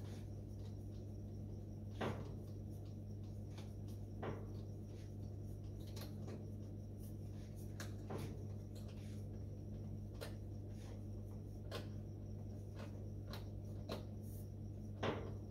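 Scattered light clicks and knocks, one every second or two, of hands and tools fitting a clamp onto a fuel hose at the engine, over a steady low hum.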